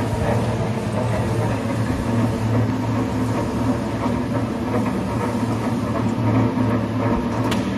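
Charcoal ball press running: a steady, even mechanical hum from its roller drive, with faint rattling and clicks on top.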